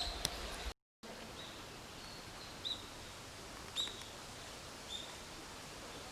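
Small birds chirping: short high calls repeated about once a second over a faint, steady outdoor hiss. A cut to silence comes under a second in, just before the chirping.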